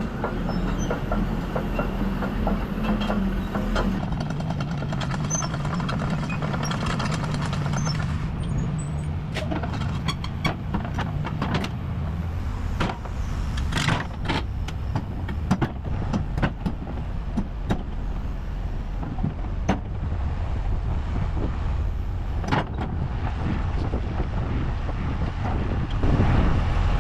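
Large diesel engine running steadily at idle, with a string of sharp clanks and knocks through the middle.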